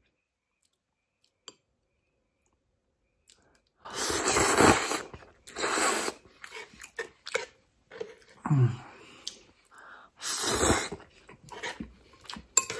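Noodles slurped off chopsticks close to the microphone: about four loud slurps, starting about four seconds in, with smaller chewing clicks between them. Near silence before the first slurp.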